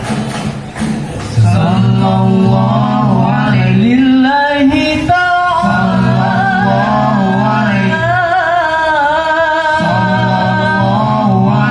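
A male vocalist sings a long, ornamented devotional solo in the banjari sholawat style, with wavering melismatic runs over a steady lower backing that drops out briefly twice.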